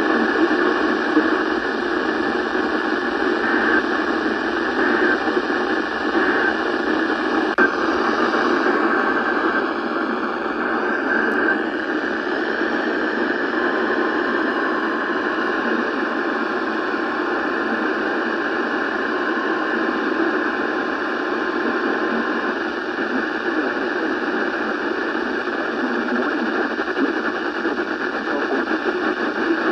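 Radio static: a steady, narrow-band hiss from a radio receiver, with no intelligible speech coming through. A faint steady tone sits in the hiss from about the middle of the stretch.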